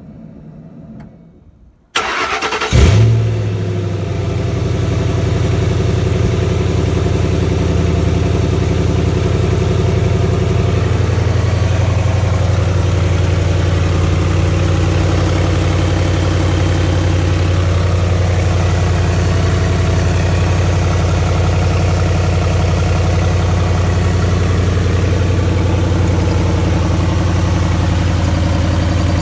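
2008 Ford Mustang GT's 4.6-litre V8 started about two seconds in, catching with a short rev flare, then settling into a steady idle with the loud ticking its owner is asking for help with.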